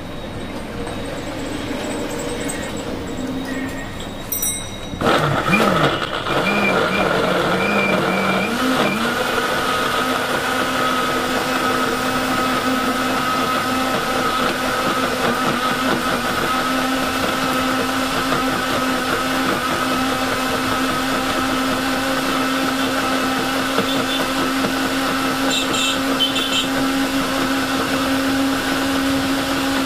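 Electric countertop blender switching on about five seconds in and running steadily while blending dates into a date shake. Its motor pitch wavers for a few seconds as the dates break up, then holds steady. Before it starts, street traffic noise.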